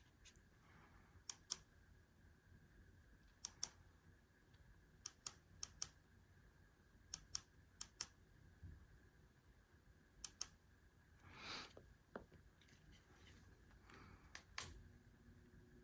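Light sharp clicks, mostly in quick pairs, every second or two, with one brief hiss about two-thirds of the way through.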